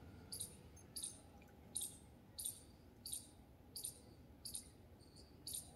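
Faint, short, high-pitched chirps from a small bird, repeating evenly about every two-thirds of a second.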